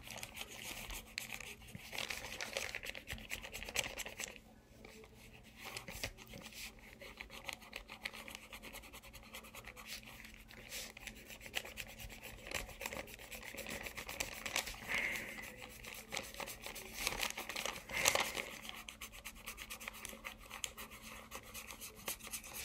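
Rubber eraser rubbing back and forth on journal paper, erasing pencil guide lines in quick, uneven scrubbing strokes.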